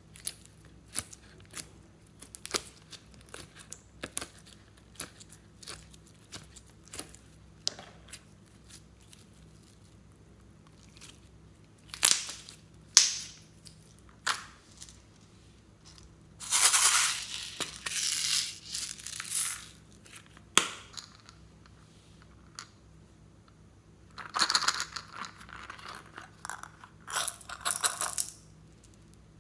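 Slime being handled: many small sticky clicks and squelches as green slime is pressed out of a plastic heart mold and spread by hand. From about halfway on come louder snaps and longer rattling stretches, the last as small beads are poured from a bottle into a hand.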